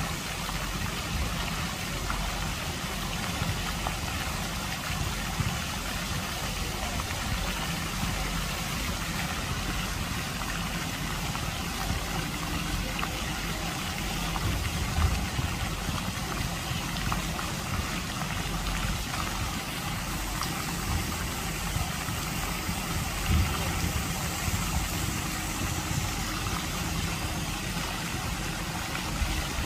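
Lake fountain jets splashing steadily onto the water surface, an even hiss, with a low rumble underneath.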